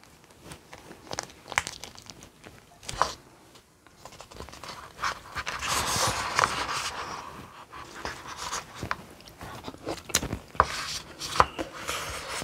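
Tabletop handling sounds: a plastic sauce packet crinkling as it is squeezed out, then chopsticks stirring and clicking in a small bowl, with a denser scraping rustle about halfway through and scattered sharp taps.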